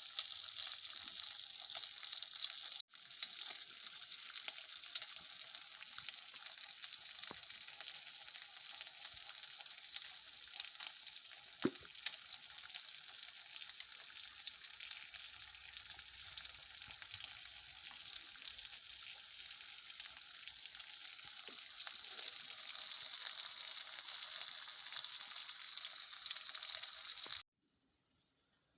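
Food frying in a pan with a steady crackling sizzle, briefly broken about three seconds in and cut off abruptly near the end.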